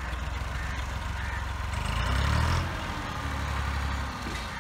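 Massey Ferguson 260 tractor's diesel engine working under load as it pulls a heavily loaded sugarcane trolley, with a steady low hum that grows louder about two seconds in.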